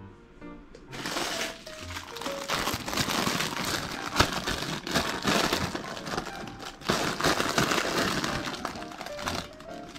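Thin plastic produce bag crinkling and rustling in irregular bursts as lettuce leaves are pulled out of it, over light background music.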